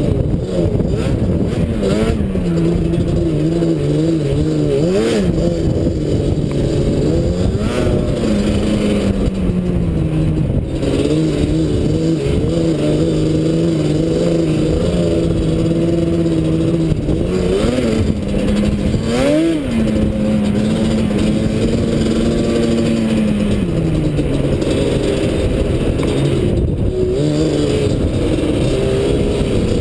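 Quad ATV engine running under way, its pitch rising and falling continuously with the throttle, with two short, sharp revs, one about five seconds in and one near the middle.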